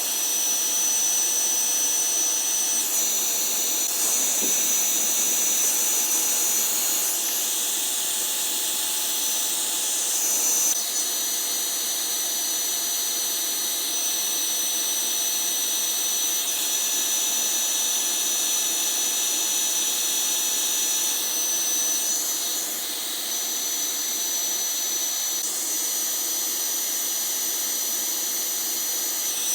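Steady high-pitched machine hiss with a thin whistling tone, shifting abruptly every few seconds.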